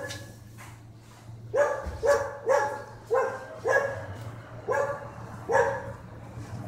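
A dog barking, a run of about seven short barks starting about a second and a half in.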